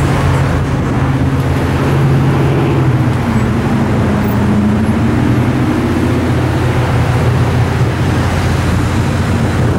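A loud, steady low rumble that holds through the whole stretch, of the kind heard from road vehicles.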